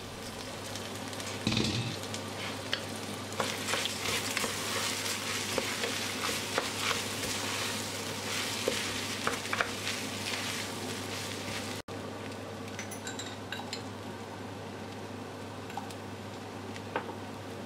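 Red lentils, bulgur and rice sizzling in oil with diced vegetables and pepper and tomato paste in a stainless steel pot, stirred with a wooden spoon, with small scrapes and ticks against the pot. This is the grains being sautéed before the water goes in. After a short break about twelve seconds in, the sizzle is quieter.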